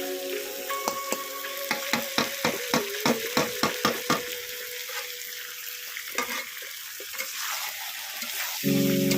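Chicken curry sizzling in a pan while a spoon stirs it, knocking against the pan about three times a second for a couple of seconds. Near the end, a loud steady chord of music comes in.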